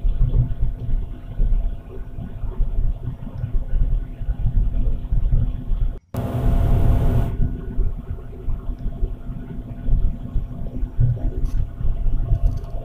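Vehicle engine running with a steady low rumble, heard from inside the cab. About halfway through, the sound cuts out for an instant, then a second of hiss follows before the rumble resumes.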